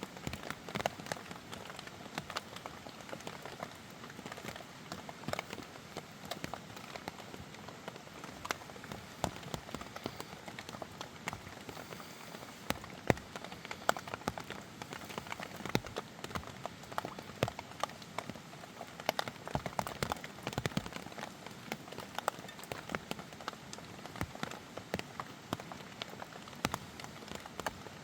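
Rain falling steadily, a constant hiss broken by many sharp, irregular ticks of drops striking.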